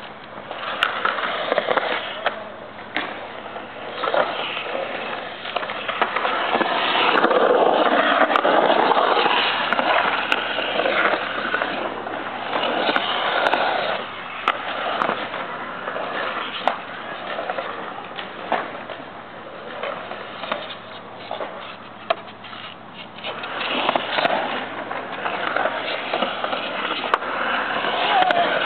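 Skateboard wheels rolling on a concrete bowl: a steady rushing rumble that swells and fades as the rider carves up and down the walls, with occasional sharp clacks from the board.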